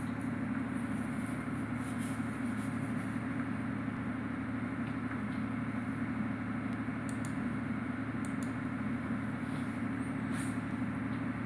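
Steady low mechanical hum of running machinery, unchanging throughout, with a few faint high clicks in the middle.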